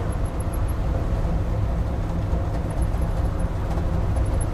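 Truck engine and road noise heard from inside the cab while cruising at about 35 mph: a steady, even low rumble.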